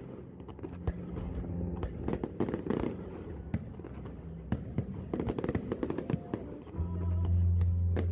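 Fireworks bursting overhead in a rapid string of sharp cracks and crackles, with music playing along; a loud, deep bass note comes in near the end.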